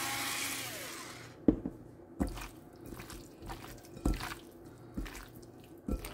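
Electric pepper grinder whirring, its motor winding down and stopping about a second in. Then raw chicken pieces are squished and tossed by hand in a glass bowl: short wet slaps and clicks roughly once a second.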